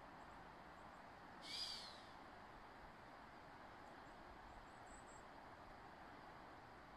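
A single short, hissing whistle that rises and falls, about one and a half seconds in, over a faint steady hiss: the alarm whistle of a chamois.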